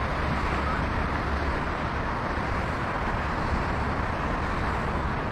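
Steady wind noise on the microphone mixed with the wash of ocean surf breaking on the shore.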